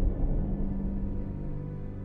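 Dark, scary ambient music of low held drones, with a new low tone coming in about half a second in.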